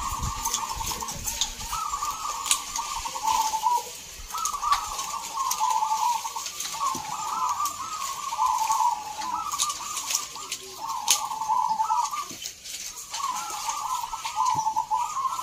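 Caged zebra doves (perkutut) cooing in a near-continuous series of rolling, trilled phrases about a second long each, with brief gaps between them.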